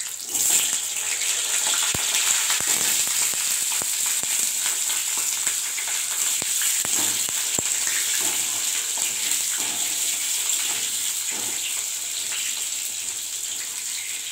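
Potatoes frying in hot oil in an aluminium kadai: a loud, steady sizzle that starts about half a second in as they go into the oil. A spatula clicks against the pan a few times while the potatoes are turned.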